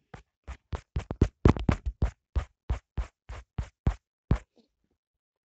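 A quick, uneven series of about seventeen sharp clicks or taps, roughly three to four a second, that stops about four and a half seconds in.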